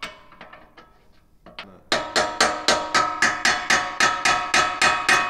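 Steel wrench striking the steel pivot of a bumper-mounted spare tire carrier. Light clicks of the wrench come first, then from about two seconds in there is a rapid, even run of ringing metallic clanks, about four a second.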